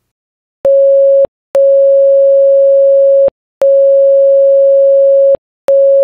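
Electronic Morse code tone, one steady beep keyed short, long, long, short: dot-dash-dash-dot, the letter P, the first letter of 'Pittsburgh'. Each beep starts and stops with a faint click.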